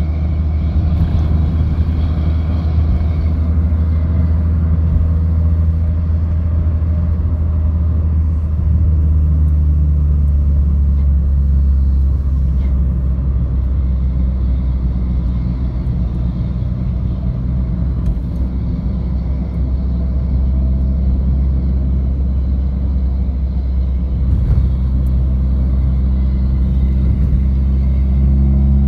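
Steady low rumble of a car's engine and tyres heard from inside the cabin while driving on a highway, the engine note shifting in steps a few times as speed changes.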